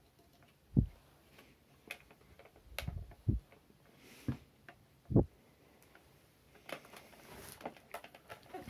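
Hard plastic parts of a slow juicer knocking and clicking as they are handled and fitted together, with a handful of short dull thumps spread through the first five seconds and lighter clicks between.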